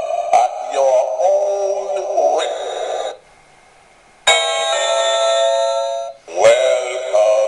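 Electronic Halloween novelty doorbells playing their sounds one after another: tinny electronic tones with a wavering, voice-like melody. Each sound starts abruptly. The first stops about three seconds in, and after a short gap a second plays, followed near the end by a third.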